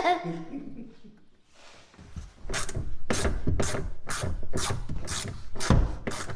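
Quick repeated scraping strokes, about four a second, starting about two and a half seconds in after a quieter stretch.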